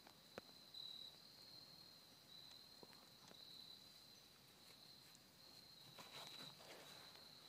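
Faint, steady, high-pitched chirring of insects in the woods, with a few soft clicks and a brief rustle about six seconds in.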